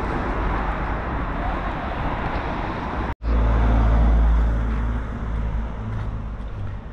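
Street traffic: cars driving past on a city road. About three seconds in the sound drops out for an instant, then a louder low rumble sets in and fades toward the end.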